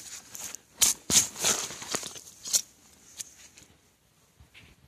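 Small digging shovel cutting into turf and soil: several short, scraping strikes in the first three seconds, then only faint rustling.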